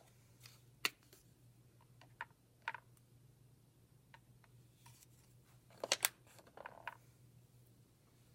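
Scattered light clicks and taps from painting supplies being handled, with a tight cluster of them about six seconds in, over a steady low hum.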